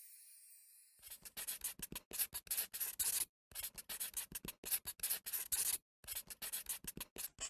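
Quick scratching and rubbing strokes on a surface, several a second, in runs broken by short pauses, starting about a second in.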